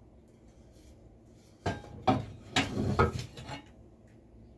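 Tools being handled and set down: a cluster of short metal and wood knocks and clinks, a few ringing briefly, starting a little under two seconds in.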